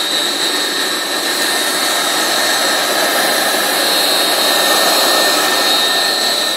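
Single-wall corrugated plastic pipe extrusion line running: a loud, steady machine noise with a steady high whine over it.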